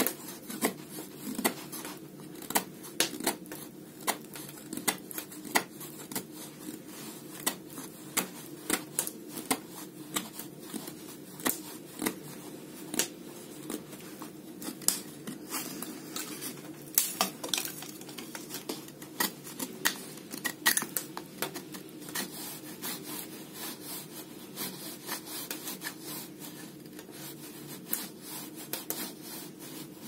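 Folding pocket knife (MCusta) shaving a dry wooden stick. Its blade makes short, sharp scrapes, roughly one or two a second, at an uneven pace, as curls of wood peel off.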